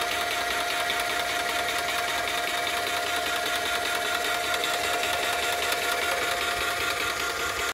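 Graco airless paint sprayer's piston pump running steadily while priming, pushing air out through the return hose into a bucket of water before it is fully primed. A steady hum.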